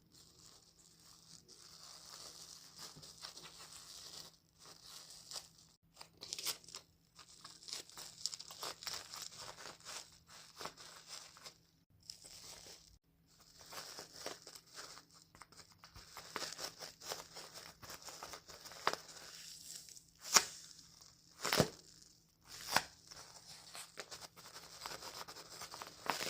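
Plastic wrap and paper napkin crinkling and rustling as they are handled in stop-start bouts, with a few sharper, louder crackles near the end.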